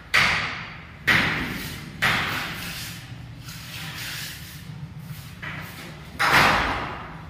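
Mason's steel trowel working on a cement floor: three sharp scraping strokes a second apart, then a pause and one more near the end, each loud at the start and trailing off.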